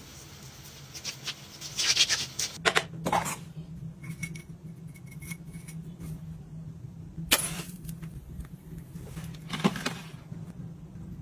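Hands rubbing hand cream together with a soft swishing, then a ceramic candle jar handled and set down, giving a few sharp knocks spread out over the rest.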